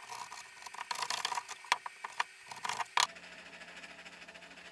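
Hand saw cutting through plywood in quick, irregular rasping strokes. About three seconds in the sawing stops abruptly, leaving a faint steady hum.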